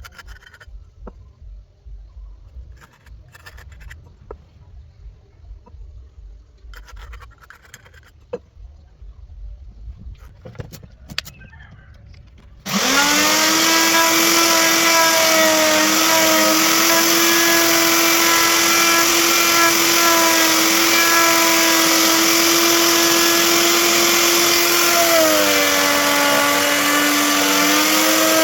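A few light taps and rubbing of wood, then about halfway through an electric power tool switches on and runs with a loud, steady whine and hiss. Near the end its pitch dips for a few seconds, then comes back up.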